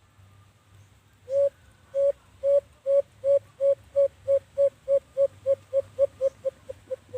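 A bird-like hooting call: about seventeen short, whistled notes at one pitch, each dipping at its end. The notes start slow and speed up into a quickening run near the end.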